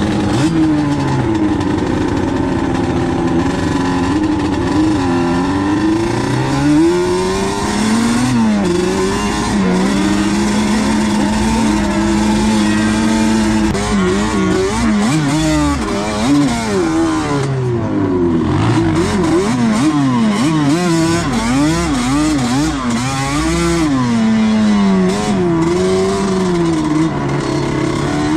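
Sport quad ATV engine heard from on board, revving up and down as it is ridden over sand dunes. The pitch holds steady for a few seconds near the middle, then rises and falls quickly many times.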